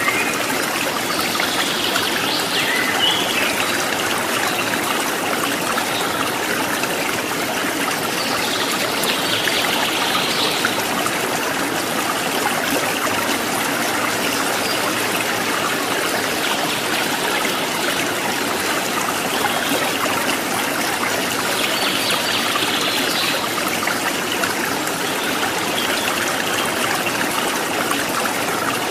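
Steady running water, like a stream trickling, going on without a break.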